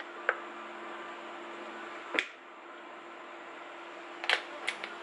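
A metal spoon clinking against a ceramic bowl while fish sauce is poured and stirred: one clink just after the start, one about two seconds in, and three quick ones near the end, over a steady low hum.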